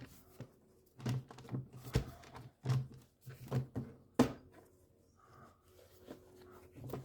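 Plastic engine air-filter housing being opened and handled: a run of irregular knocks and clatters, then quieter rustling as the air filter comes out.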